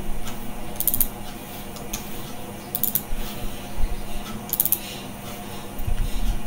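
Computer mouse clicking in quick clusters of clicks, three times, over a steady low electrical hum.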